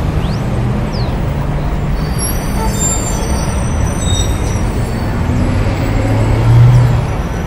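Subway train rumbling in the station, a steady low rumble with faint high squeals from about two to five seconds in and a louder low hum swelling near the end.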